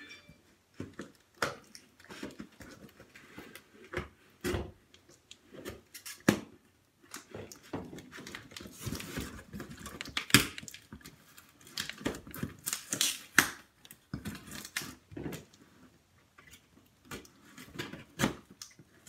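Cardboard shipping box being opened by hand: packing tape and a paper label peeled and torn off, with the cardboard scraped, knocked and flexed in irregular bursts. A few longer, louder ripping stretches come in the middle.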